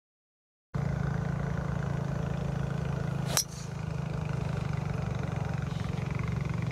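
A driver striking a golf ball from the tee: one sharp crack about three and a half seconds in, over a steady low engine hum.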